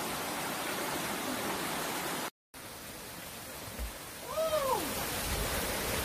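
Mountain stream rushing over rocks, a steady hiss of running water. It cuts out completely for a moment a little over two seconds in and comes back quieter, and a single short rising-then-falling voice-like call is heard about four and a half seconds in.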